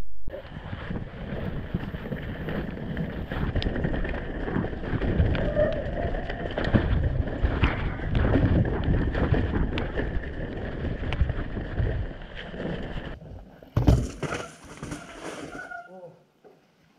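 Mountain bike, an Orbea Rallon, ridden fast down a rough, wet trail: tyres rumbling over the ground, frequent knocks and clatter from the bike, and wind on the microphone. The noise drops suddenly after about 13 seconds, a single sharp knock follows, and the sound then dies away to near silence.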